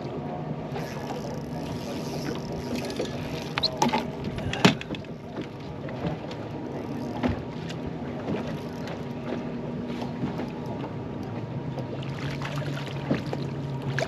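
Choppy water slapping against a bass boat's hull with wind, under a steady low hum. A few sharp knocks come around four to five seconds in, one of them the loudest sound.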